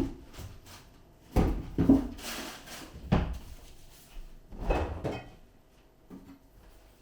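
Kitchen clatter: four or so knocks and clunks from things being handled and set down, with a short rustling hiss between the first few.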